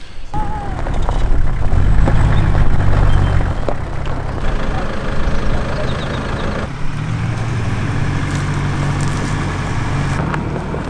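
Off-road vehicle driving slowly along a dirt forest track: the engine runs low and steady, with tyre and body noise over it.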